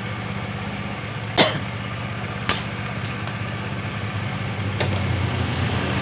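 Honda Vario 110 carburetted scooter's single-cylinder engine idling steadily, running with the battery disconnected on its new regulator-rectifier and charging system alone. Two sharp clicks come about a second apart early on, and a fainter one later.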